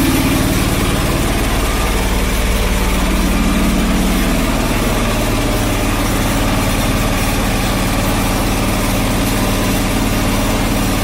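John Deere 445 garden tractor's engine idling steadily.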